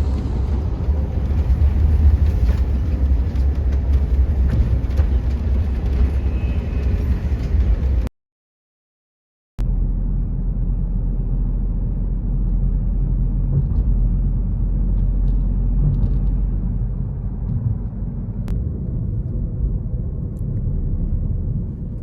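Steady low rumble of a road vehicle or passing traffic, cut off by a moment of dead silence about eight seconds in, then resuming.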